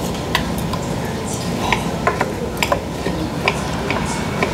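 Metal spoon clinking and scraping against tableware bowls while eating and stirring, about eight short sharp clinks, over a steady low background hum.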